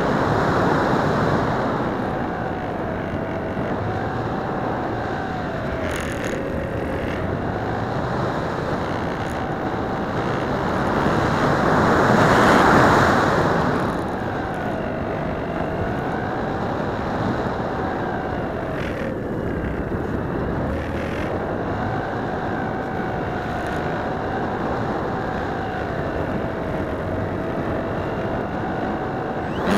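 Wind and airflow rushing over the onboard camera of a Phoenix 2000 RC motor glider in flight, swelling louder for a couple of seconds near the middle. A faint thin whine wavers slowly up and down in pitch throughout.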